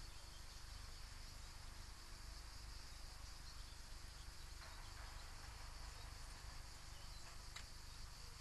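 Faint, steady, high-pitched drone of summer insects, with a low rumble underneath.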